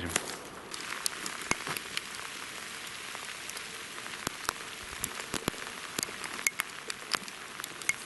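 Footsteps through dry grass and forest undergrowth: a steady rustling hiss with many small, irregular crackles and snaps of stems and twigs underfoot.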